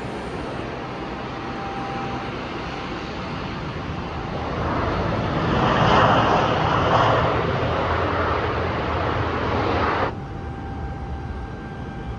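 Car vacuum hose running with a steady rushing roar. It grows louder about halfway through, then cuts off abruptly about ten seconds in, and a quieter stretch of similar noise follows.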